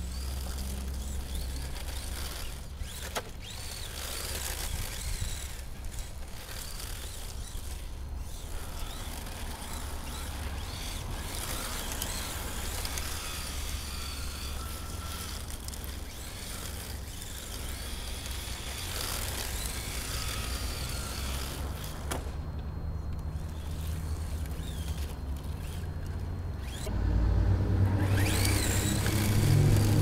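Tamiya TT-01D radio-controlled drift car's electric motor whining, rising and falling in pitch as the car speeds up and slows while sliding around, over a steady low rumble. Near the end a semi-trailer truck's engine comes in and gets louder as it passes.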